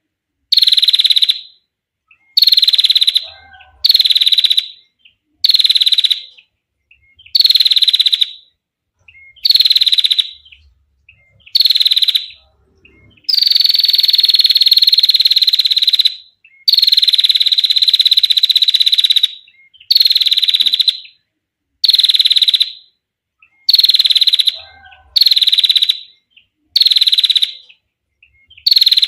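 Female prinia (prenjak) giving its rattling trill ('ngetir'), loud and clear, in short bursts of under a second repeated about every one and a half seconds. Two long trills of about three seconds come near the middle.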